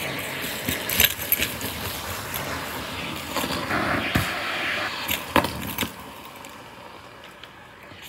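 Central vacuum running with air rushing through the hose, with sharp clicks and rattles as debris is sucked up. About six seconds in the rushing sound drops and goes quieter, as the hose plugs up again.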